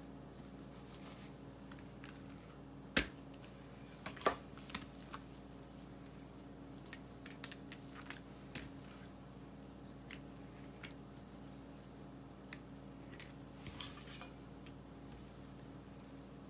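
Metal bench scraper knocking and tapping on a textured pastry mat as bread dough is cut and handled, in scattered light taps with one sharp knock about three seconds in, over a low steady hum.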